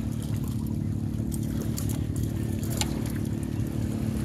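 A steady low engine hum, with a few faint clicks over it.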